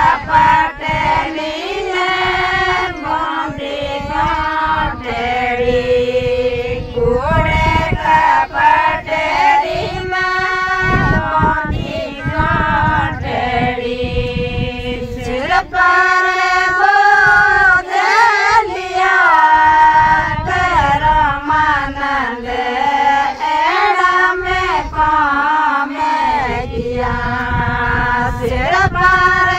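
Group of women singing a Rajasthani harjas, a devotional folk song, in unison with a lead voice.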